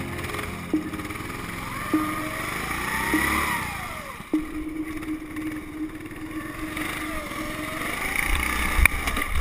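Go-kart engines: a steady engine note close by, with the engines of other karts rising and falling in pitch as they run around the circuit. A few clicks and a sharp knock near the end.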